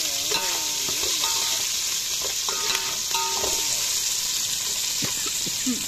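Oil sizzling steadily in an aluminium pot as a tempering of mustard seeds, dal and green chillies fries, with sliced onions added. A steel ladle stirs in the pot, giving a few short squeaky scrapes.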